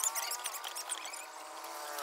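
A steady engine hum, its pitch sinking slowly, with a few light metallic ticks early on.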